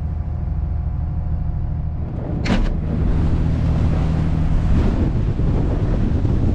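Nordhavn 55 trawler yacht's diesel engine running steadily underway, with one short sharp knock about two and a half seconds in. From about three seconds on, a steady rushing noise of wind on the microphone is added over the engine.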